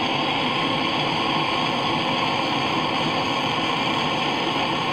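A handheld gas torch burning with a steady, even hiss.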